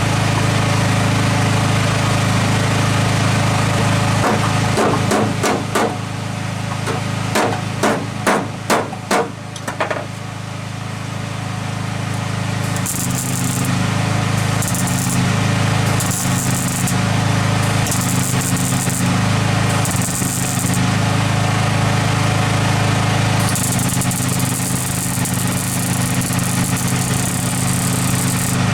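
Generator engine running steadily throughout. A rapid series of hammer blows on metal comes in the first third. Later come several short bursts of arc-welding crackle, the last one longer.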